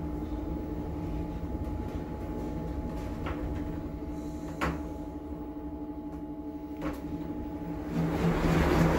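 Passenger lift running: a steady electric hum with a few short clicks. Near the end the hum stops and louder outside noise rises.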